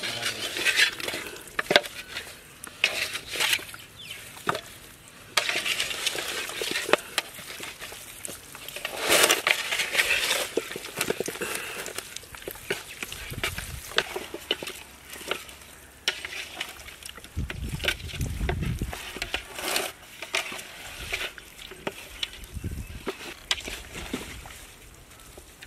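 A bare hand squelching and turning raw chicken legs in a wet chilli-spice marinade inside a large metal pot, in irregular wet squishes with occasional sharp clicks of pieces knocking the pot.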